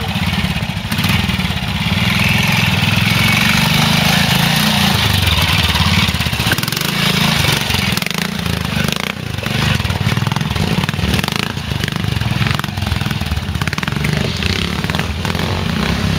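Pre-65 trials motorcycle engine running at low revs, rising and falling as the throttle is worked over the rocks of a stream bed.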